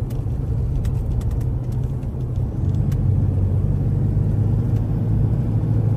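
A car driving along a road, heard from inside the cabin: a steady low rumble of engine and tyre noise.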